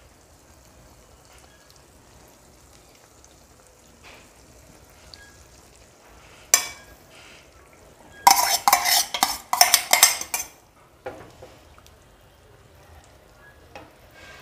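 Beaten egg mixture poured from a steel bowl into a hot frying pan, with a faint steady sizzle. A spoon clinks once against the steel bowl, then scrapes and taps against it rapidly for about two seconds, scooping out the last of the mixture.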